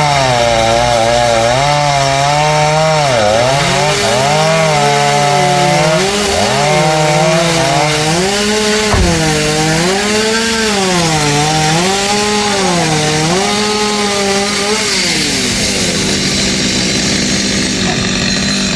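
Two-stroke chainsaw cutting tamarind tree limbs, its engine pitch dipping and rising over and over as the chain bites into the wood and frees. About fifteen seconds in, the engine pitch steadies.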